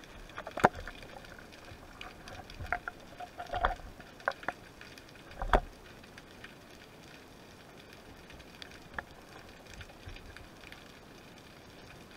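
Underwater knocks and clicks of a speargun and its shaft being handled as a speared fish is pulled in, heard through the camera housing on the gun. The sharpest knocks come about half a second in and at about five and a half seconds, with a run of smaller clicks between, over a faint steady hiss.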